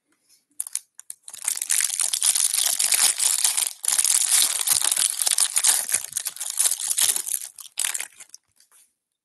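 Clear plastic wrapper crinkling as it is torn and peeled off a stack of baseball cards: a few sharp crackles, then dense crinkling for about six seconds with a brief break midway, and a last short crinkle near the end.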